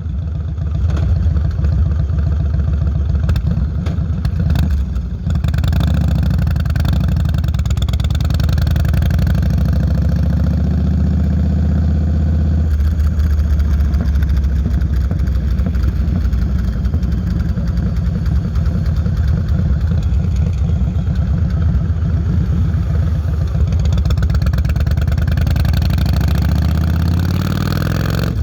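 Yamaha Road Star 1600's carbureted V-twin running through Vance & Hines Longshots exhaust pipes while cruising. The engine note changes with throttle about twelve seconds in and rises near the end.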